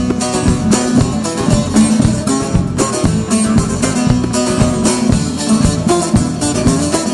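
Lively instrumental Alevi folk music: a fast plucked-string melody over a steady percussion beat.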